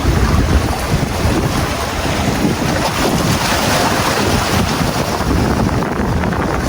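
Strong gusting wind buffeting the microphone, a heavy, uneven rumble, with a wider hiss swelling around the middle.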